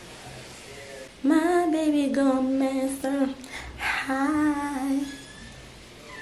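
A woman singing a short phrase without accompaniment, holding long notes in two stretches with a brief break between them, from about a second in until about five seconds in.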